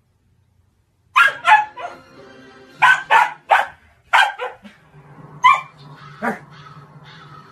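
Husky puppy barking in play: about nine short, sharp barks, several in quick pairs, starting about a second in.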